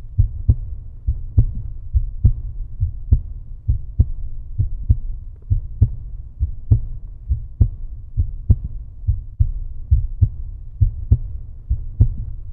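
A deep, steady thumping beat from the outro soundtrack, about one strong thump a second with a lighter one between each.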